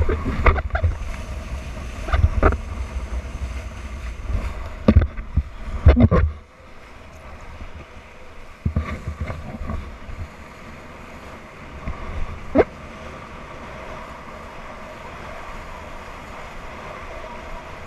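Wind buffeting the microphone of a kitesurfer's wide-angle action camera, with water splashing and knocking against it in the first six seconds, then a steadier rush of wind and water with a few single knocks.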